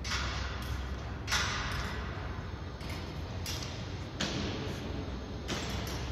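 Steady low hum in a large hall, with about six short rushing noises at irregular intervals.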